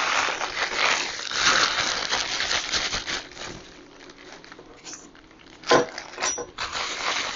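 Plastic packaging bags crinkling and rustling as they are handled and opened, with one sharp click a little under six seconds in.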